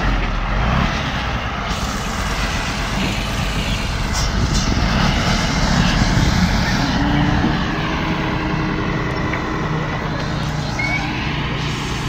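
Isuzu Forward tractor truck's diesel engine running as it pulls a flatbed trailer away and drives past, the low engine note steady and easing slightly as the truck moves off.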